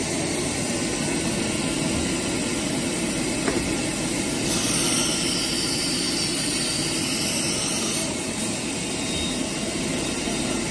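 CNC router machinery running with a steady, loud noise. A high whine joins it for a few seconds partway through, dipping and then rising in pitch.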